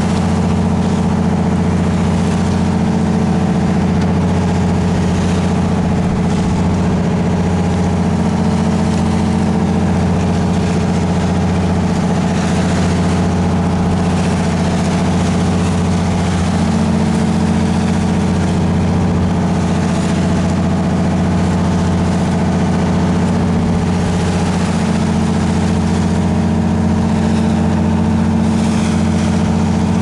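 A fishing boat's engine runs at a steady, unchanging drone, with a rushing hiss of water over it.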